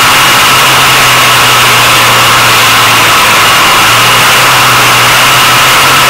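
Vintage racing snowmobile's two-stroke engine running loud and steady at low speed, heard close up from a camera mounted on the sled. The engine note dips briefly about three seconds in, then picks up again.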